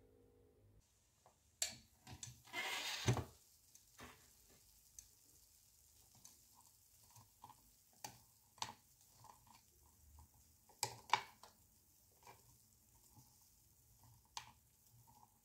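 Wooden skewer poking and tapping at cracked, half-melted M&M's candies on a waffle iron plate: scattered sharp clicks and light taps, with a short hissing rustle about three seconds in.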